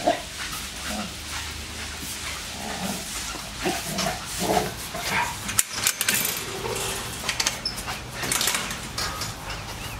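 Several dogs at rough-and-tumble play, giving short growls and other brief vocal sounds spread through the first half, with scuffling and rustling noise later on.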